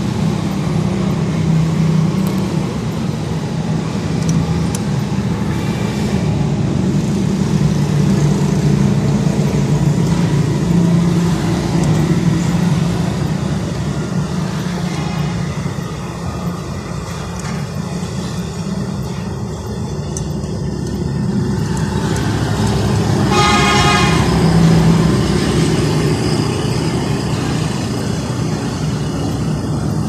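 Steady motor-vehicle engine and traffic noise, with a vehicle horn sounding once for about a second and a half, roughly three-quarters of the way through.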